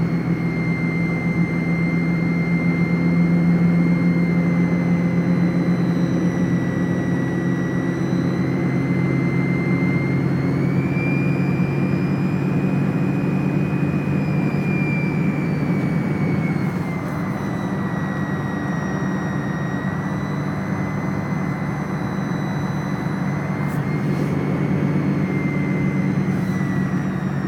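1998 Volkswagen Jetta 1.9 TDI four-cylinder turbodiesel running with a steady low hum and a thin, high whistle over it that rises a little about ten seconds in and sinks back several seconds later. The owner does not know the whistle's cause and suspects an exhaust leak, a boost leak or a failing turbo.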